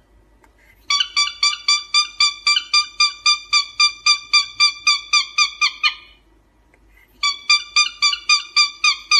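Cockatiel giving rapid, evenly spaced short whistled chirps, about four a second, breaking off about six seconds in and starting again about a second later.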